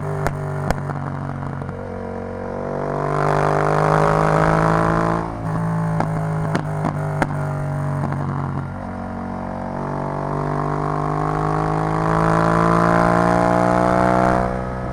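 Yamaha MT-07's parallel-twin engine through an Arrow full-system exhaust, revs climbing twice in long pulls. Each pull cuts off sharply, with the exhaust crackling and popping at the start and again after the first pull.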